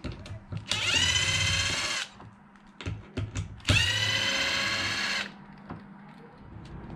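A cordless power driver runs twice, each time spinning up quickly to a steady whine for a second or so, while screws are backed out to remove the RC car's receiver box. Small clicks of parts being handled fall between the two runs.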